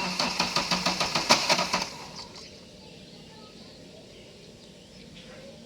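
Mahindra Bolero's diesel engine being cranked by the starter motor, a fast even chugging of about seven strokes a second that stops after about two seconds without the engine catching. It is a crank-no-start, with a blinking check engine light and fault codes pointing to the fuel pump.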